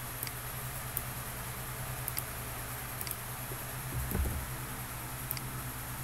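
Computer mouse clicks, several single and some in quick pairs, over a steady electrical hum from the recording setup, with a soft low thump about four seconds in.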